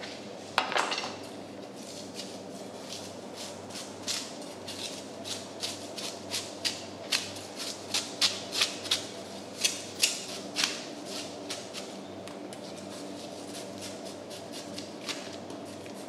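Knife blade scraping scales off the skin of a giant bluefin tuna in a run of short, sharp strokes, about two a second, thickest in the middle of the stretch. A sharper knock comes about half a second in, over a steady low hum.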